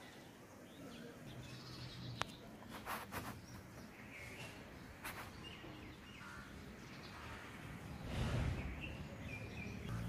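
Outdoor ambience with scattered short bird chirps. There is a sharp click about two seconds in, and a brief rush of noise near the end.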